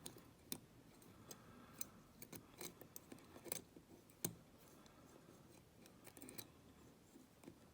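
Faint, irregular metallic clicks and scrapes of wire picks working the levers inside a vintage Evers three-lever padlock, with one sharper click a little over four seconds in.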